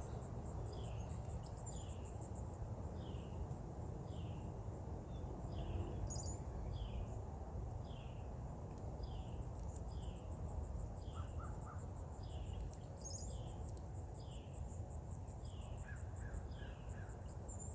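Outdoor ambience: a bird repeating a short falling note about every 0.7 seconds, over a steady high-pitched insect trill and a low rumble of wind or handling noise.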